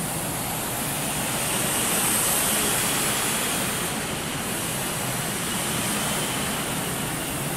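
Miniature jet turbine of an RC model jet running at reduced throttle, throttled back on the approach to landing: a steady rushing hiss with a faint high whine above it that drifts slowly in pitch.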